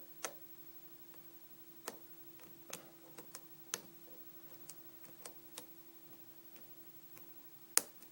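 Irregular small clicks of a lock pick and tension wrench working the pins of a 5-pin Fimbel padlock, with pins being set and false-set; the sharpest click comes near the end. A faint steady hum sits underneath.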